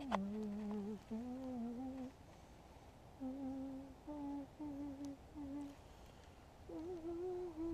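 A man humming a tune to himself in short phrases with brief pauses between them.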